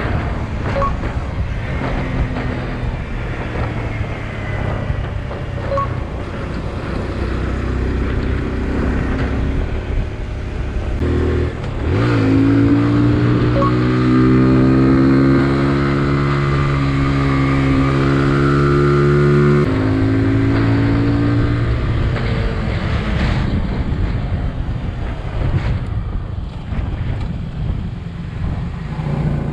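Motorcycle engine running under way, with wind noise. About twelve seconds in the engine note climbs and then holds steady. It drops suddenly a few seconds before the end, as on a gear change or closing the throttle.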